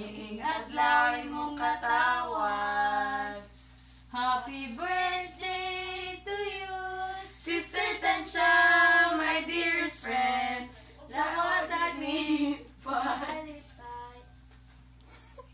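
Women and a girl singing a birthday song together in phrases with short pauses between them; the singing stops near the end.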